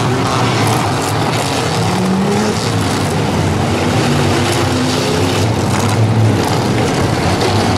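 Several demolition derby cars' engines revving and running hard at once, their pitches rising and falling as they accelerate around the arena.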